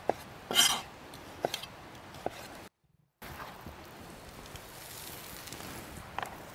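A few sharp knife taps and a short scrape on a cutting board as cherry tomatoes are sliced, then a faint steady hiss with one more tap near the end.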